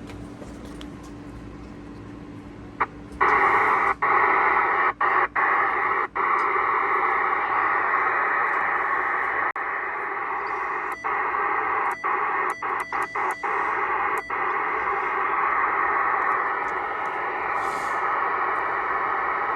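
President Lincoln II+ ten-meter radio's speaker hissing with receiver static. The static comes on loud about three seconds in and is broken by brief dropouts and clicks, several in quick succession past the middle.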